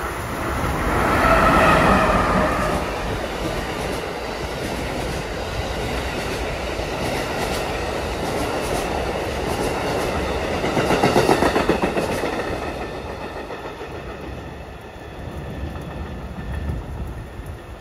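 A train's multi-tone horn sounds for about two seconds near the start, then an Amtrak Northeast Regional train of Amfleet passenger cars passes close at speed, its wheels clacking over the rail joints with a steady rushing noise that swells again partway through and eases off as the train draws away.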